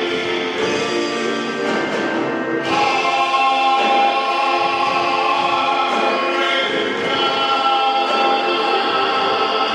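Male gospel vocal group singing in close harmony with organ accompaniment, holding long sustained chords that swell louder about three seconds in.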